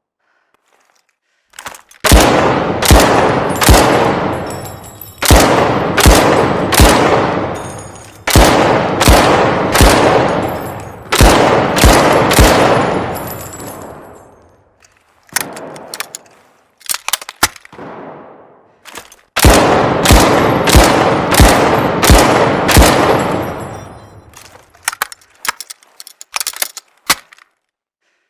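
Lewis gun firing single shots about a second apart, each shot ringing out in a long echoing decay, in several strings with pauses between them. Short sharp clicks sound in the gaps.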